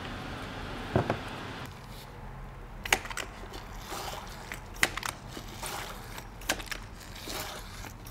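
Hand-operated fluid pump being worked in strokes, a short sharp click-and-squish about every second and a half to two seconds, pumping automatic transmission fluid up a hose into the fill hole of a ZF 6HP26 six-speed automatic gearbox.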